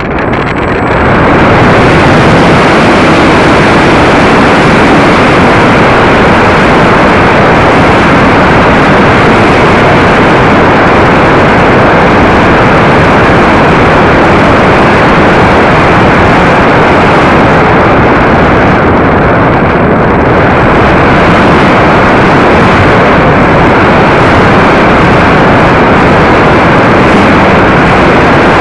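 Model T-28 airplane's motor and propeller at high power during takeoff and climb, heard close up from under the fuselage: a loud, rough, steady rush of motor noise and wind, swelling about a second in and then holding steady.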